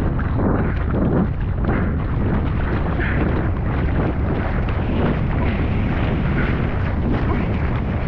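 Strong wind buffeting the microphone in a loud, steady rumble.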